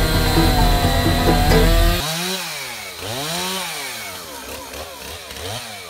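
Background music for about two seconds, then a chainsaw revved up and down again and again as it cuts through a fallen tree, each rev rising and falling in pitch over about a second, the later ones shorter and fainter.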